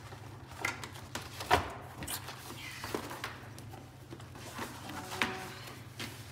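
Scattered knocks, taps and rustles of things being handled and packed up at a desk, the sharpest knock about one and a half seconds in, over a steady low room hum.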